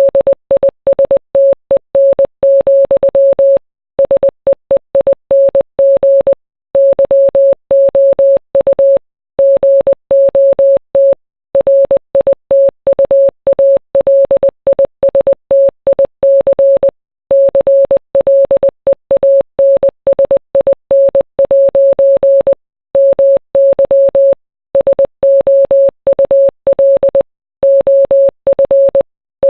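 Morse code: a single steady beep tone keyed on and off in short dots and longer dashes, with brief pauses between groups of characters.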